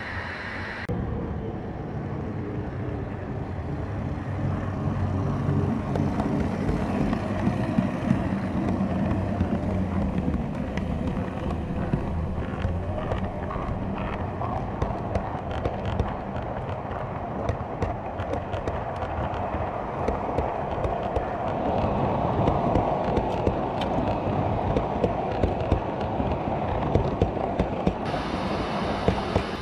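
A 7mm-scale model train's coaches rolling past close by, their wheels rumbling on the track with frequent sharp clicks over the rail joints.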